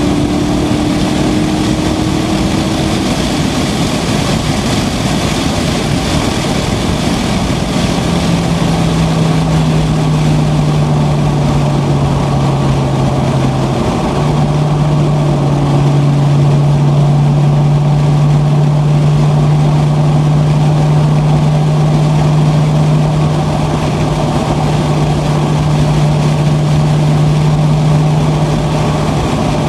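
A Corvette's engine and road noise heard inside the cabin at speed on the track: a steady drone whose engine note sits higher in the first few seconds, then drops lower about eight seconds in and holds there.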